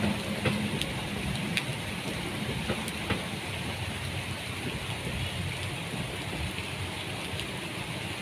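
Steady rain falling, with the low rumble of a departing passenger train fading away over the first second or two, and a few sharp clicks.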